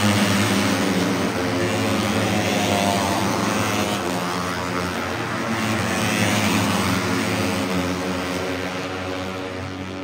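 Moto3 race bikes' 250cc single-cylinder four-stroke engines screaming past at high revs, several overlapping, their pitch sliding up and down with gear changes and passing. Loudest right at the start and again around six seconds in, fading near the end.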